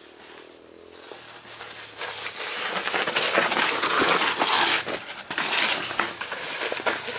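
Mountain bike passing close by on a loose dirt trail: tyres rolling and grinding over the soil, with scattered sharp clicks, swelling to loudest as the bike goes past about four seconds in and easing off near the end.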